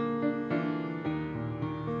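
Upright piano playing chords, a new chord about every half second, each held until the next.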